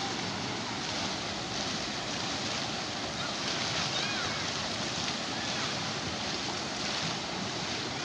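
Steady rush of water pouring down concrete water-slide chutes and splashing out into a pool, an even unbroken roar.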